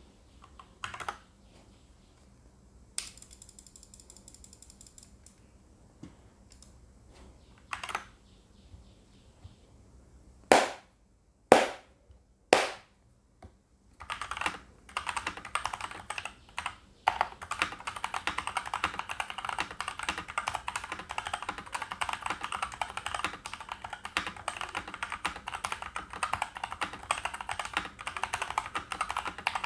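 Mechanical keyboard with unlubed Yusha red linear switches, stock stabilizers and ABS keycaps being typed on: a few separate key presses, then three loud single strokes, then steady fast typing from about halfway through.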